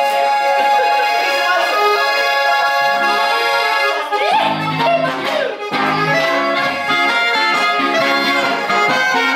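Accordion playing a traditional tune in sustained chords, with low bass notes coming in about four seconds in.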